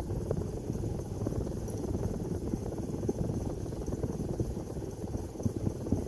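Hunter Santa Barbara ceiling fan running, a steady low whir from the motor and spinning blades with many small irregular ticks running through it.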